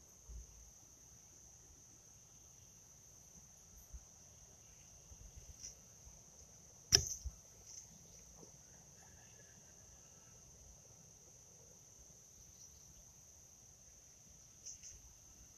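A pitched steel horseshoe landing in the sand pit beside the stake: one sharp impact about seven seconds in.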